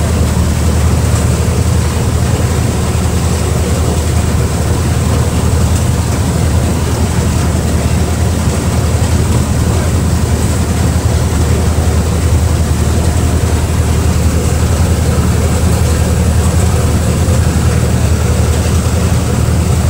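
Speedboat engine running steadily at cruising speed, a constant low drone, with the rushing hiss of water from the boat's wake.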